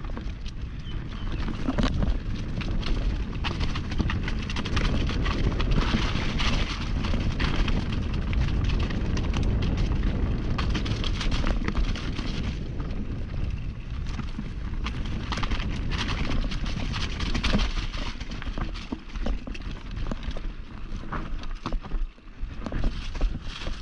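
Mountain bike descending a rough downhill trail: wind buffeting the microphone and tyres rumbling over dirt and rocks, with many sharp clatters from the bike as it hits bumps. The noise eases for a moment near the end.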